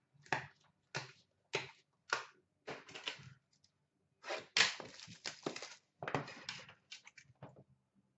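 Cardboard box of hockey cards being handled and opened by hand: a run of short crackles, knocks and rustles, busiest about halfway through.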